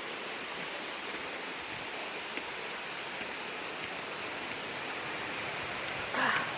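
Steady rush of a small waterfall's falling water. A short, louder sound breaks in near the end.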